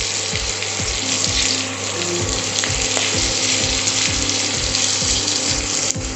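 Onions, spring onions and chopped green chillies frying in hot oil in a kadai, with a steady sizzle. Background music with a regular beat plays underneath.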